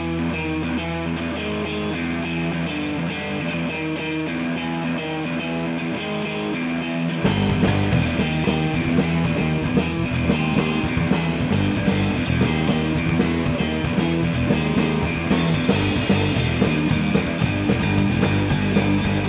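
Instrumental rock track led by guitar, with no vocals. About seven seconds in the sound opens out, fuller and brighter, with steady percussive hits from the drums.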